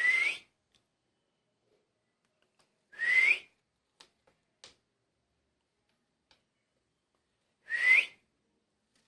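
Cockatiel giving three short rising whistled calls, spaced a few seconds apart, each sweeping upward in pitch.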